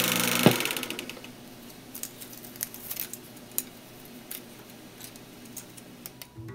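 Logo sound effect: a noisy swell fading away over about the first second, with a sharp click near the start, then scattered, irregular light clicks and ticks over a faint hiss.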